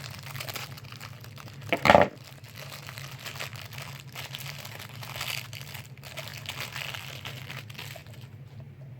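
Plastic wrapping crinkling as a small toy is unwrapped by hand, with a brief louder burst about two seconds in.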